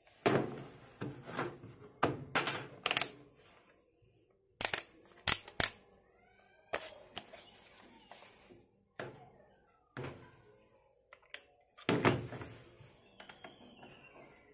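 Knocks and clicks of a plastic handheld multimeter being handled and set against a workbench: a run of knocks in the first few seconds, sharp clicks around five seconds in, then scattered knocks with a louder group near the end.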